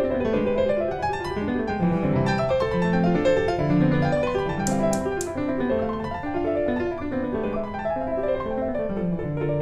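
Background piano music: a melody of separate notes over lower chords, at an even level.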